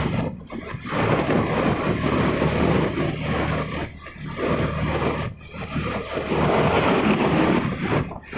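Wind rushing over the microphone on a moving vehicle, with a steady low engine hum underneath.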